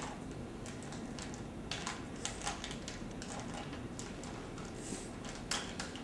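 Rubik's cube turned by hand: irregular plastic clicks and clacks as the layers are twisted, a few a second, with the sharpest click about five and a half seconds in.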